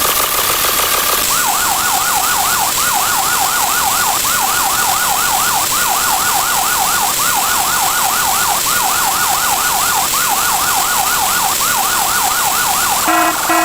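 Siren sound effect in a fast yelp, its pitch sweeping up and down several times a second in looped groups over a steady hiss. It takes over from a steady tone about a second in and gives way to a different stepped beeping pattern near the end.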